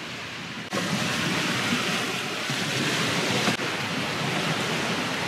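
Steady rushing noise of wind and water with no clear tone. It jumps louder abruptly just under a second in and shifts again a little past three and a half seconds.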